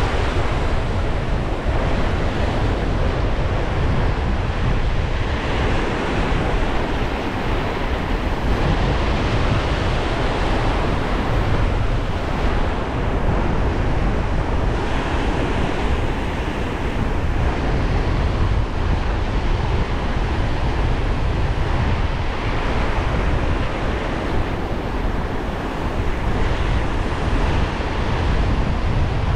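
Small surf waves breaking and washing over shallow sand, a steady rush of water with wind buffeting the microphone underneath as a low rumble.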